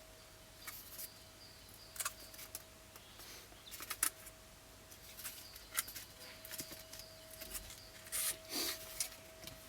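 Scattered light clicks, taps and scrapes of hand work on plastic vent and ducting parts, over a faint steady tone.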